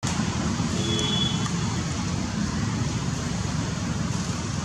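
Steady low rushing outdoor noise with no clear rhythm, and a brief faint high tone about a second in.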